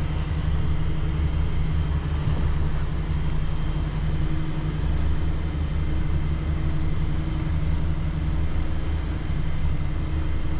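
Twin diesel engines of a Lagoon 450 F catamaran running steadily at about 2,200 RPM: a constant low drone over a steady hiss.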